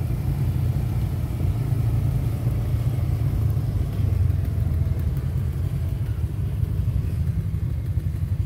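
A vehicle's engine running with a steady low rumble, with no revving.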